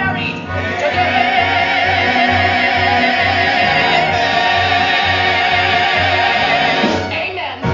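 Musical-theatre singing with accompaniment: the voice holds one long final note with vibrato over a pulsing bass line, and the music breaks off near the end.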